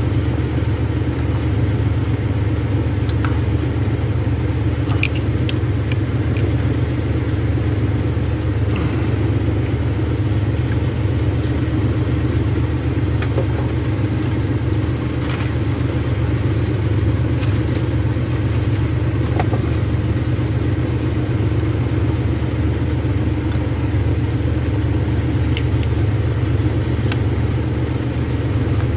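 An engine idling steadily, a low even hum with no change in speed, with a few faint clicks over it.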